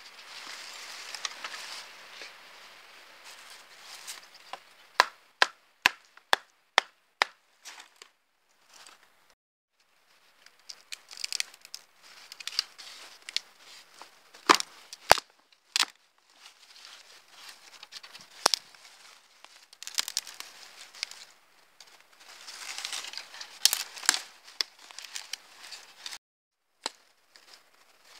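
A cheap stainless hunting knife working a thin wooden branch: scratchy scraping strokes as the blade shaves bark, broken by sharp chopping knocks, including a quick run of about six, roughly two a second, from about five seconds in.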